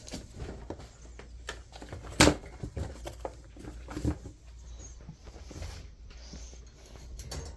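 Scattered light knocks and clicks of movement indoors, with a sharper knock about two seconds in and another about four seconds in, over a low steady hum.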